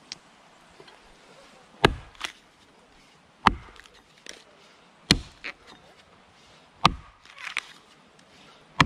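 Axe chopping into a standing tree trunk: five sharp strikes at a steady pace, about one every second and a half to two seconds, with lighter crackles after some of them.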